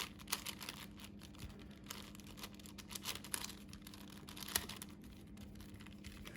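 5x5 Rubik's cube being turned by hand: quick, irregular plastic clicks and rattles as its layers rotate, over a faint steady low hum.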